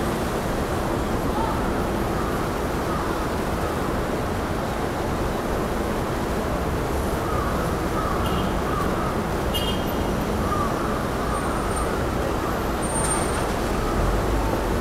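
A steady, even background rumble, with a few faint short high chirps a little past the middle.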